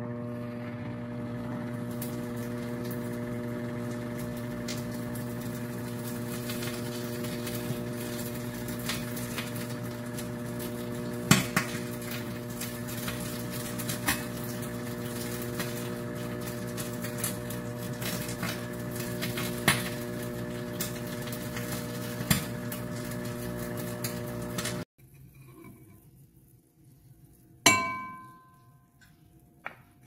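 Microwave oven running with a steady hum while an egg cooks inside, with a few sharp pops now and then from the egg. The hum cuts off suddenly near the end, followed by a single ringing ding and then a click.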